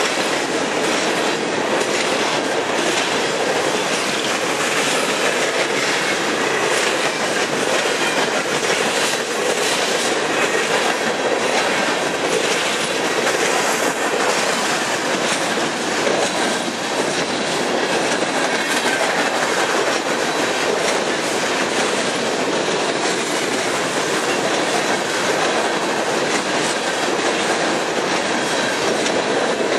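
Coal hopper cars of a long freight train rushing past at speed: a steady, loud rumble and rush of steel wheels on rail, with a rapid clickety-clack of wheels passing over rail joints.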